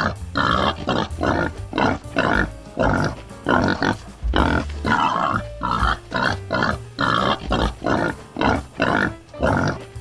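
An animal grunting in quick, evenly repeated calls, about three a second, with background music underneath.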